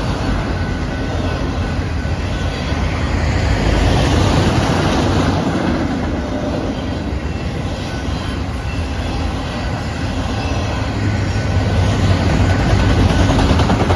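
Freight cars of a Canadian Pacific manifest train rolling past close by: a loud, steady rumble and rattle of steel wheels on the rails. It swells slightly twice.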